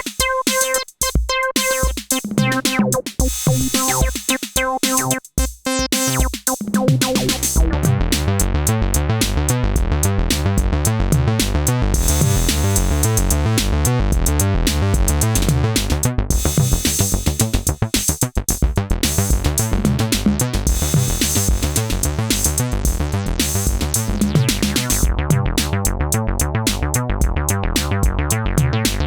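Synthesizer bass line playing over a drum machine beat. About seven seconds in, the sparse, gappy opening gives way to a dense, steady bass groove and beat.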